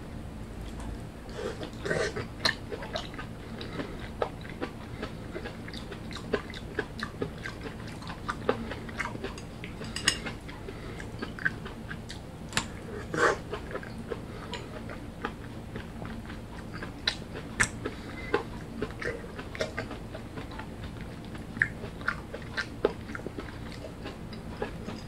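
Close-up mouth sounds of a person chewing and biting pan-fried tomato pancakes (tomato jeon): irregular short clicks and smacks over a low steady hum.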